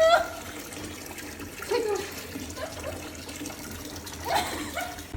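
Running water from a tap in a bath, a steady rush, with three short pitched calls over it: one right at the start, one about two seconds in and one near the end.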